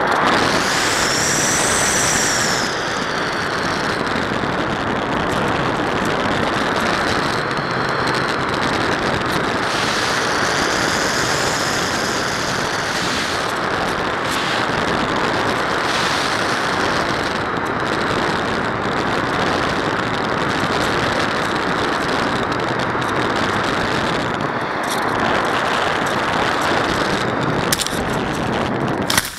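Multiplex Panda Sport RC plane heard from its onboard camera in flight: a steady rush of wind and propeller noise, with the electric motor's high whine rising and falling twice. A few knocks near the end as the plane touches down.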